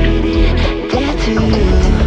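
Background music: a melodic track with a steady beat.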